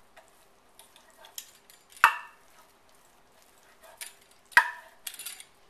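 Metal pizza cutter rolling through soft biscuit dough and striking a wooden cutting board: two sharp knocks with a brief metallic ring, about two and a half seconds apart, with a few lighter clicks between.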